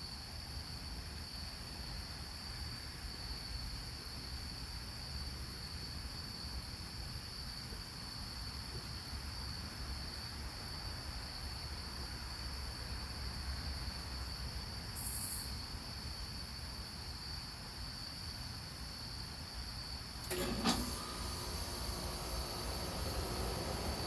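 A steady high-pitched whine or trill over a low rumble, with a short hiss about fifteen seconds in and a knock a little after twenty seconds.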